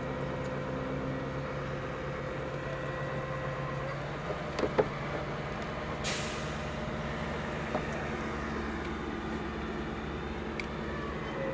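Crane engine running steadily while the mixer hangs from its hook. There are a couple of knocks about five seconds in and a short hiss about six seconds in.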